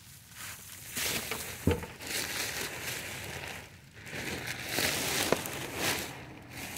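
Plastic bag crinkling and rustling as it is handled, in uneven bursts, with a single sharp knock nearly two seconds in.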